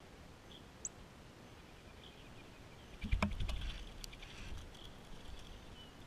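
A male northern cardinal on a platform bird feeder right next to the camera: a cluster of knocks and clicks with a low rumble about three seconds in, then a few scattered clicks. Faint chirps of small birds sound in the background.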